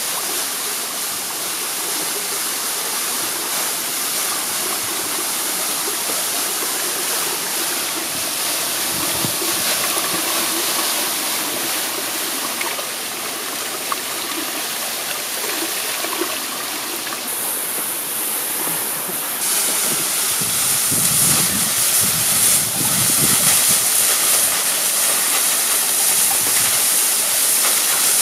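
Shallow stream running over rocks, a steady sound of flowing water, with hands splashing in it as a gutted fish is rinsed. The water sound grows louder and brighter about two-thirds of the way through.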